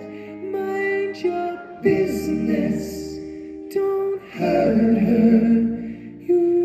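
Live band music: close multi-part male vocal harmonies sung into microphones over electric guitar and bass guitar, with long held notes that shift every second or two.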